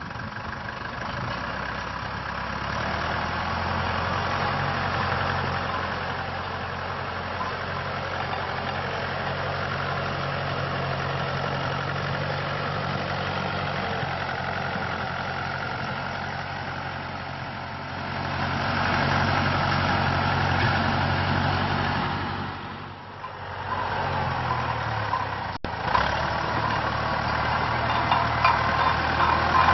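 SAME Saturno 80 tractor's air-cooled diesel engine running steadily as the tractor drives. It grows louder for a few seconds about two-thirds of the way through, dips briefly, then picks up again.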